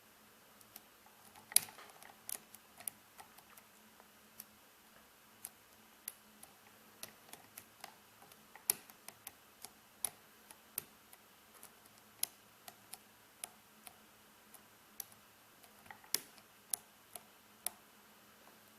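Scattered faint metallic clicks and ticks, about one or two a second, from a short hook pick and tension tool working the pins of a euro cylinder lock during single pin picking. They come as the pin stack is probed for a binding pin, with no pin yet setting.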